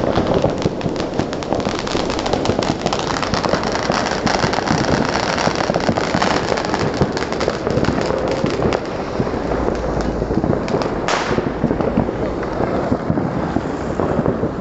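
Many fireworks and firecrackers going off at once: a dense, unbroken crackle of bangs and pops, with one louder blast about eleven seconds in.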